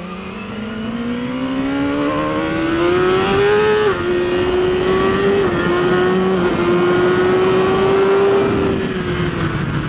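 A BMW S1000RR's inline-four engine revving hard under acceleration. Its note climbs steadily, then dips briefly three times as the bike shifts up, holds high, and eases off slightly near the end, with wind rushing past.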